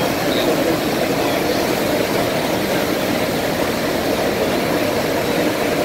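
Steady rushing noise of an aircraft carrier's wake churning white water behind the stern at high speed.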